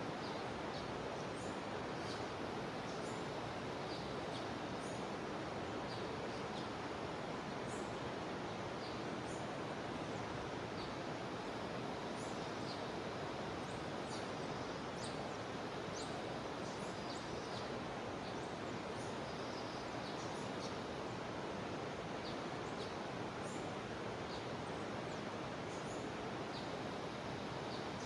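Jungle river flowing with a steady, even rush. Many short, high chirps are scattered over it throughout.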